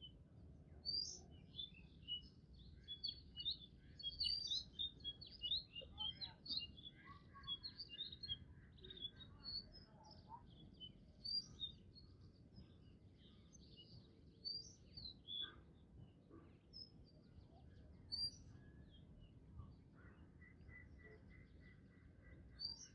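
Small birds chirping and calling, many short high calls overlapping, busiest in the first half, with a quick even run of repeated notes near the end. A low steady background noise lies under them.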